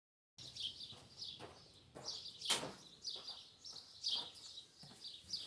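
Small birds chirping: short, falling chirps repeated every half second to a second, with one sharper, louder note about halfway through.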